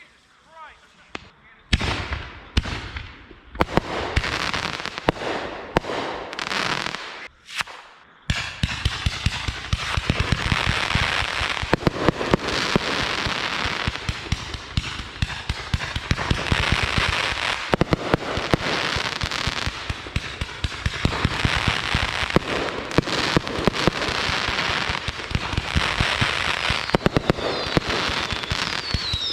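Consumer fireworks going off: a few separate bangs, each with a fading tail, over the first eight seconds, then from about eight seconds in a dense, rapid crackle of many small pops that keeps going.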